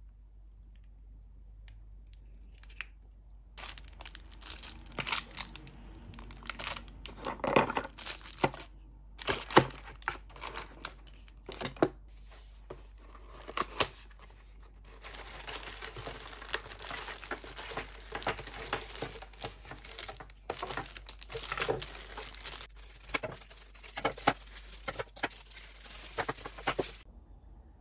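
Cardboard box and plastic wrapping being opened and handled: rustling, tearing and crinkling with many sharp taps and clicks. It starts a few seconds in and stops just before the end.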